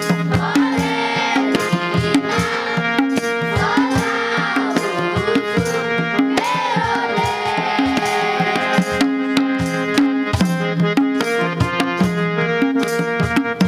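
Children's choir singing a Nepali song over madal hand drums and an electronic keyboard. The singing stops about nine seconds in, leaving the drums and keyboard playing.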